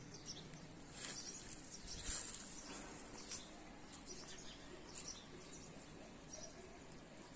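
Small birds chirping faintly, short high chirps every second or so, with a couple of brief scuffs or rustles about one and two seconds in.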